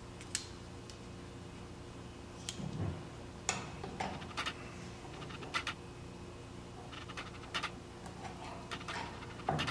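Light, scattered metal clicks and taps of snap ring pliers and a steel snap ring being worked into a wheel bearing housing, over a steady low hum, with a louder knock near the end.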